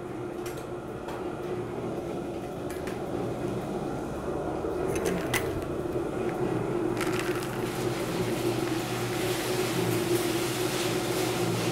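Royal No. 5 propane drum roaster running with a steady hum, with a few sharp metal clicks in the first half. About seven seconds in, cacao beans start pouring from a bucket into the hot rotating drum, a dense rattling hiss that keeps going.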